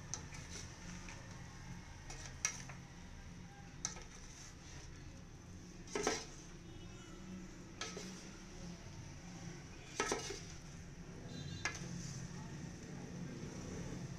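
A spoon scraping and knocking against a large metal pot as a pot of biryani rice is stirred and mixed, with a clink every second or two over a low steady hum.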